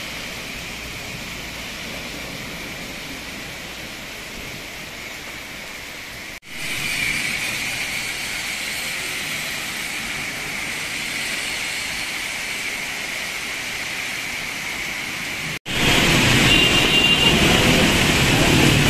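Heavy monsoon rain falling steadily, with the hiss of tyres on the wet road. Near the end it changes suddenly to louder traffic in the rain, with engines running and tyres on wet tarmac.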